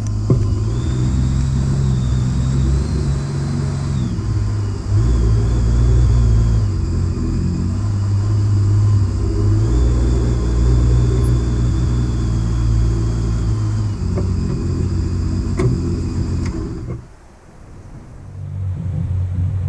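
Outboard motor pushing a fishing boat along under way: a steady low drone whose pitch steps up and down several times with the throttle. About 17 seconds in it is throttled back and the sound drops away sharply, and a lower hum comes back near the end.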